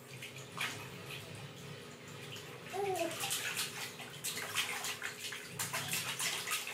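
A baby splashing and slapping bath water with its hands in a plastic infant tub: irregular small splashes, busier and louder in the second half.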